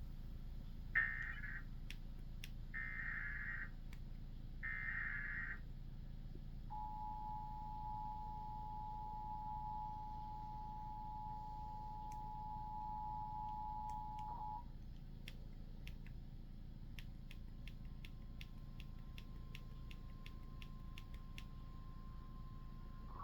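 Emergency Alert System activation for a flash flood warning: three short bursts of SAME digital header data, then the two-tone attention signal held for about eight seconds. Near the end a fainter single steady tone sounds with scattered clicks.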